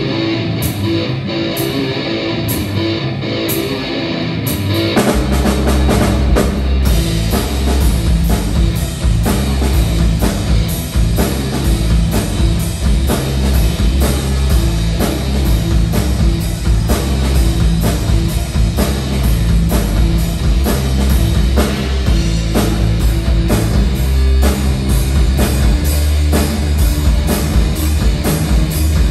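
A live rock band plays instrumental rock on electric guitars and a drum kit through stage amplifiers. It starts light, and about five seconds in the full band comes in with a heavy low end and a steady drum beat.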